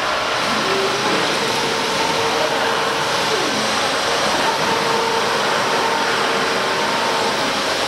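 ATC CNC wood router running with its gantry and spindle head traversing: motor whines rise, fall and break off as the axes move, over a steady rushing machine noise.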